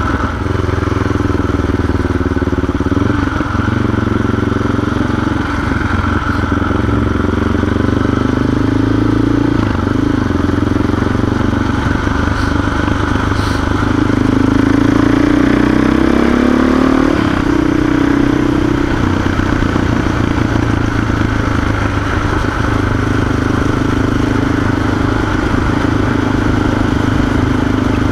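CCM 604e supermoto's single-cylinder four-stroke engine running under way, heard from the rider's seat. Its revs rise and fall with the throttle, and it climbs noticeably in pitch about two-thirds of the way through.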